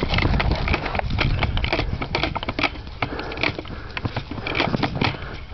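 Footsteps crunching and rustling through dry leaves and brush: irregular crackling steps with no steady rhythm.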